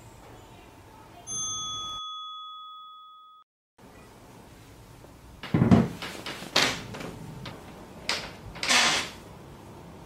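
A single bell-like ding that rings out and fades over about two seconds. After a short silence come several sudden bursts of blanket and bedding rustling, the loudest a little past halfway.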